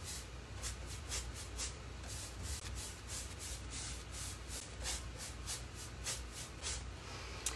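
Synthetic paintbrush scrubbing thick chalk mineral paint onto an oak drawer front: a quick run of short, scratchy strokes, about two to three a second.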